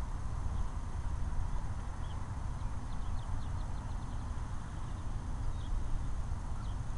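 Outdoor ambience: a steady uneven low rumble, like wind on the microphone, with a quick run of faint high bird chirps about two and a half seconds in.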